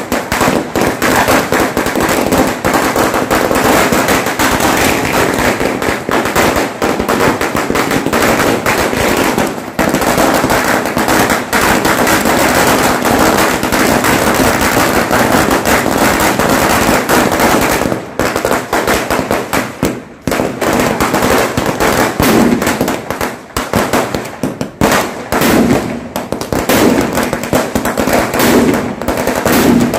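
Strings of firecrackers going off in a dense, rapid crackle of bangs, with a few brief lulls.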